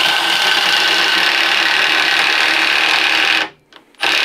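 Milwaukee M18 Fuel Surge hydraulic impact driver running a 1/2-inch twist bit into pressure-treated wood, a steady buzzing drive. It stops about three and a half seconds in and starts again briefly near the end: the tool cutting out under load.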